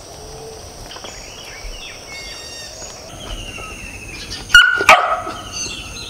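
A dog barking twice, sharply, about four and a half seconds in, over steady insect and bird calls.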